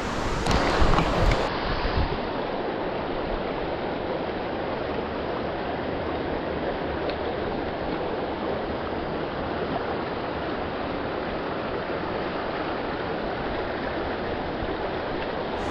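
Steady rush of a creek's flowing water, with a few louder brief noises in the first two seconds.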